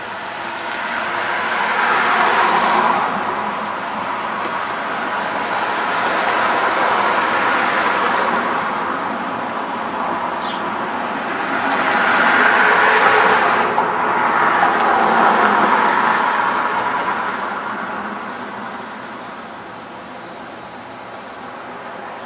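Road traffic passing: several vehicles swell and fade one after another, loudest about two, seven, thirteen and fifteen seconds in.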